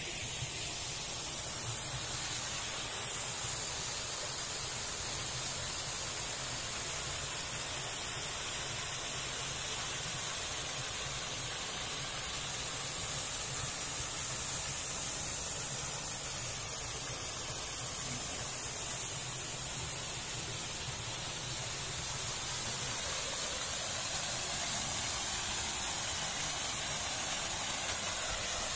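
Steady rushing of falling water from a waterfall, with a steady high hiss above it.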